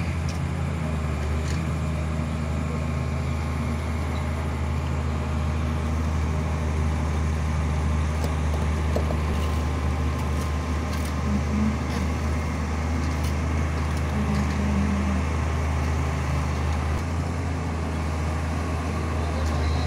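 Diesel engine of a Hitachi Zaxis 350 excavator running at a steady speed, a low even hum.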